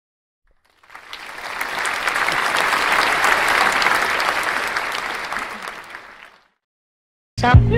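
Crowd applause that swells in about a second in and fades away over about five and a half seconds. Just before the end, a music track with a deep bass and sliding notes starts.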